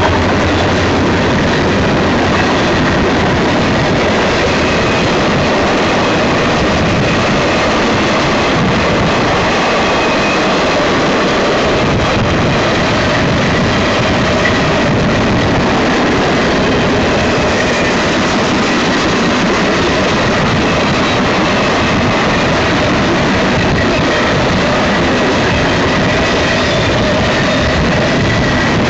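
Freight cars of a Union Pacific manifest train rolling past close by: a loud, steady noise of steel wheels on rail that holds unchanged throughout.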